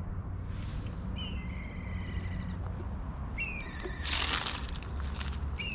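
A bird calling outdoors: high whistled calls about every two seconds, each with a sharp upward start and then a held, wavering tone lasting about a second. A brief rustle or scuff comes just past the middle, over a steady low rumble of wind or surf.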